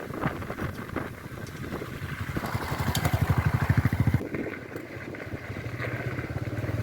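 An engine running with a fast, even low throb that grows louder, drops off suddenly a little past the middle, and builds again near the end.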